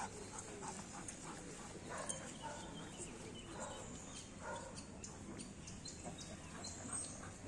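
Faint sounds of a working dog on a leash, with no loud barks.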